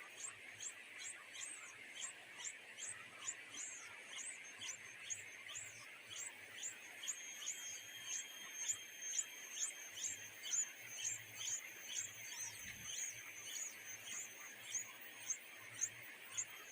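High, thin chirps from a small bird, repeated evenly about two to three times a second, over a steady insect-like hiss.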